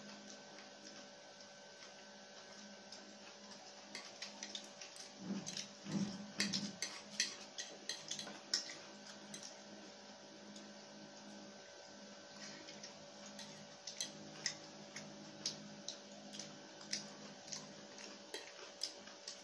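Close-up eating sounds: chewing and mouth smacks on noodles, with plastic forks clicking against the plates, a string of short sharp clicks that is busiest a few seconds in. A faint steady hum runs underneath.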